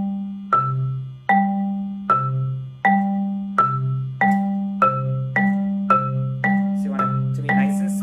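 Marimba played in alternating single strokes, two mallets in one hand taking turns on a low C and the G a fifth above it (independent strokes). The strokes speed up steadily from about one every three-quarters of a second to about two a second, each note ringing until the next.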